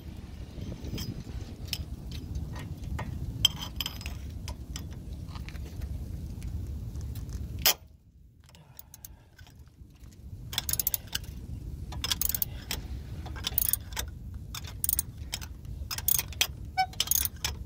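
Ratchet wrench with a 17 mm socket working the outer tie rod end nut loose: metal clicks and clinks from the ratchet and socket. A low rumble fills the first half, a single sharp click comes about halfway through, and after a short quiet spell quick irregular clicking runs through the rest.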